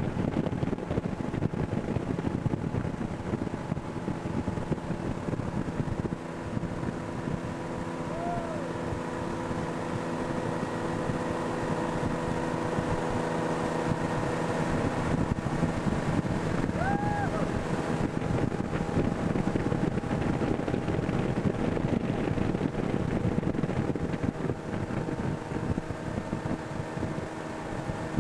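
Tow boat's engine running steadily at speed, heard from on board, with wind buffeting the microphone and water rushing past.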